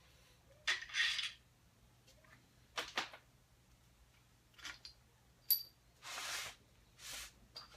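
Scattered metal clinks and knocks of engine parts being handled at a Ford 302 V8 block, as the main bearing caps come off the crankshaft. A few of the clinks ring briefly, and there are two short scuffing noises a little after the middle.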